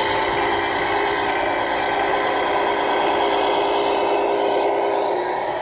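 Steady, engine-like drone with an even hum, typical of the simulated diesel engine sound from a radio-controlled model truck's sound unit.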